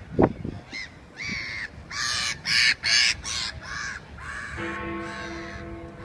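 Gulls calling over and over with loud yelping cries, after a short loud thud right at the start. About four and a half seconds in, one of the Westminster clock-tower bells is struck once and rings on with a pulsing hum.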